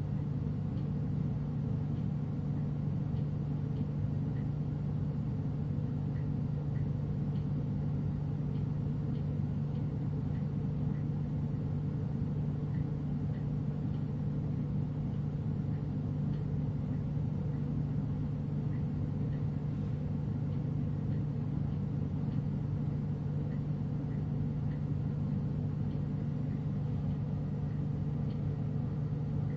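Bench-top glassworking torch burning steadily while glass beads are heated in its flame: a constant low rush that does not change.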